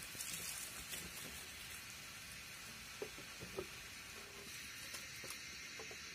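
Water poured out of a plastic jerrycan splashes onto the ground for about the first second, over a faint steady hiss. A few light knocks of the plastic can follow later.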